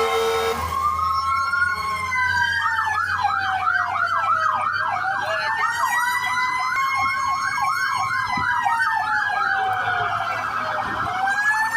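Several emergency sirens, fire trucks responding, sounding at once: slow wails rising and falling, overlaid from about two seconds in until near the end by a fast yelp sweeping about two to three times a second. A steady horn blast cuts off just after the start.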